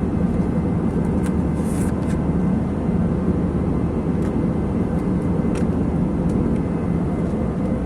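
Steady airliner cabin noise in flight: a constant low drone of engines and airflow, with a few faint clicks over it.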